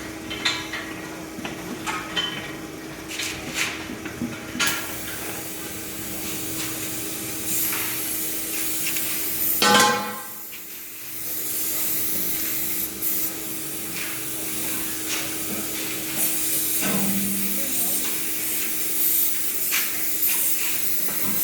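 Alloy wheel lathe running: a steady motor hum under a hissing noise, with a brief loud pitched sound about ten seconds in.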